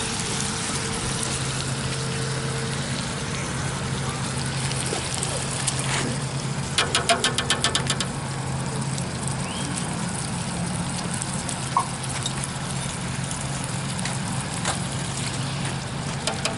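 Canned tomato sauce and Rotel pouring from upturned cans into a large enamel stockpot of seasoned chili meat, over a steady background hiss and low hum. About seven seconds in there is a quick run of sharp taps, roughly ten a second, for about a second.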